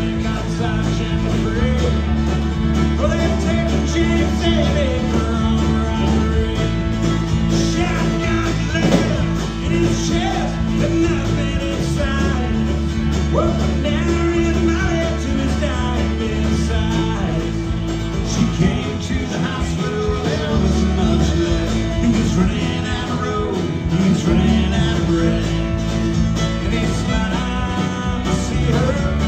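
Live country-rock band playing an instrumental break, with a lead melody soloing over bass, guitar and drums.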